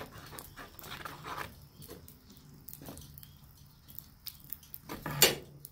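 A hooked steel rod stirring molten borax in a steel pan over a coal forge fire: irregular metallic scrapes and clinks against the pan, with a louder scrape about five seconds in, over a faint low steady hum.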